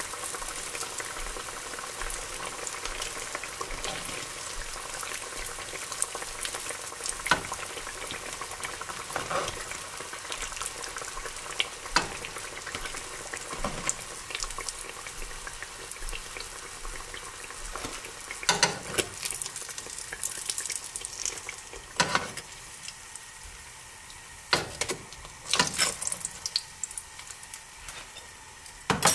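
Tempura-battered vegetables deep-frying in hot oil: a steady sizzle, broken by sharp clicks and knocks now and then, which come more often near the end.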